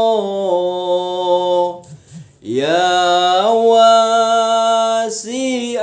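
A man singing a sholawat line unaccompanied, drawing the syllables out into long held notes. He breaks for a breath about two seconds in, then holds the next note and steps up in pitch.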